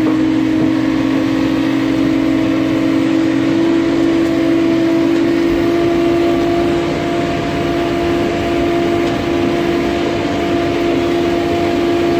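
Pushback tug running steadily while pushing back a Boeing 737-800, with a constant hum and a fainter higher tone above it.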